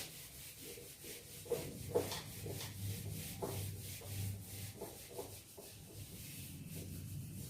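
Faint, irregular scratching strokes of writing on a board.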